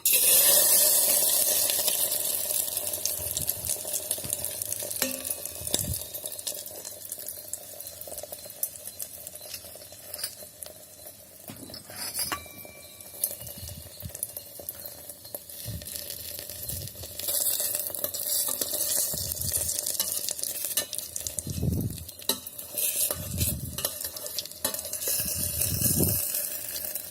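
Beaten egg with chopped onion and green chillies poured into hot oil in an electric kettle, sizzling loudly the moment it goes in, then frying more quietly. Scattered knocks and scrapes of a utensil stirring in the pot run through it, busier in the second half.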